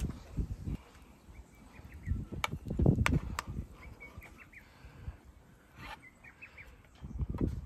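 A metal spoon clicking against a mess tin a few times as it digs into the rice bowl, with some low handling thumps. Birds chirp in short series of quick notes in the background.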